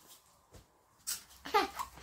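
A disposable diaper crinkling briefly about a second in, then a young child babbling.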